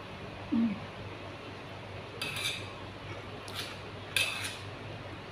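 A metal spoon scraping and clinking against a plate of rice while eating, three short strokes in the second half. Near the start there is a short, low hummed "mm" that falls in pitch.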